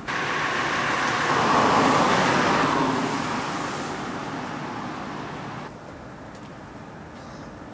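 A car passing on a street: a rush of tyre and engine noise that comes in suddenly, swells to its loudest about two seconds in, fades away, then cuts off.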